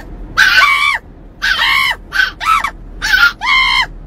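Chihuahua puppy yelling: a run of about six high-pitched yowls, each arching up and then down in pitch, with short gaps between them.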